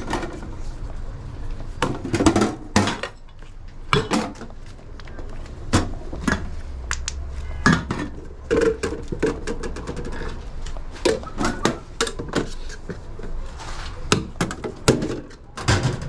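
Stainless steel lids, pans and utensils of a hot dog cart's steam table clanking and clinking as hot dogs are assembled: many irregular sharp metal knocks over a low steady hum.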